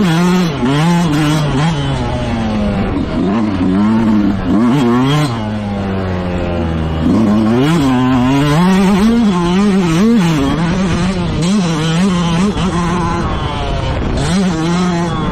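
Motocross bike engine racing hard, its pitch rising and falling with the throttle and gear changes every second or so. It holds a steadier note for a couple of seconds in the middle, then climbs again.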